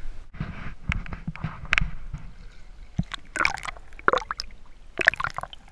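Seawater sloshing and gurgling around a camera as it is dipped below the surface, with irregular splashes and bubbly clicks.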